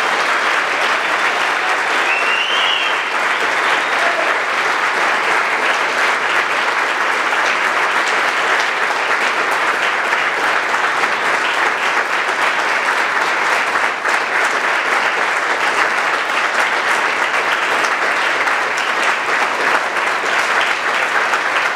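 A large audience clapping steadily and without a break, a long ovation.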